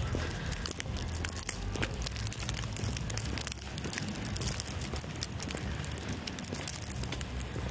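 Outdoor walking ambience: many irregular light crackles and clicks over a steady low rumble.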